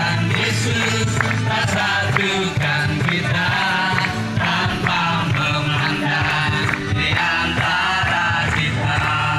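Upbeat Indonesian praise song: voices singing over instrumental accompaniment with a steady beat.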